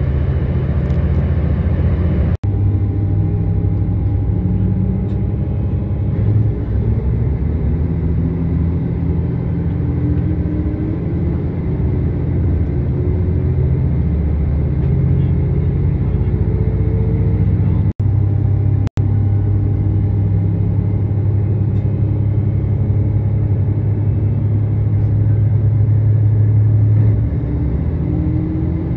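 Diesel express train running: a steady low engine drone with the engine note slowly climbing as it pulls, easing off near the end. The sound is cut off for an instant three times.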